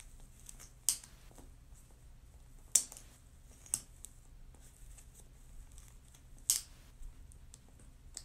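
Plastic strap buckle of a Corflex Contender post-op knee brace clicking as its gray tab is snapped in and released: several sharp clicks a few seconds apart.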